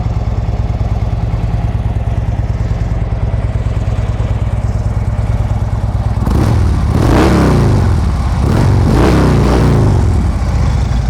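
2013 Harley-Davidson Road Glide Custom's 103 cubic inch V-twin idling through Vance & Hines high-output slip-on mufflers. About six seconds in it is revved twice, each rev rising and falling back to idle.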